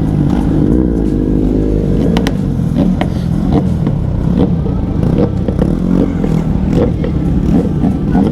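Kawasaki Z900 inline-four engine running and revving, its pitch rising and falling in the first two seconds.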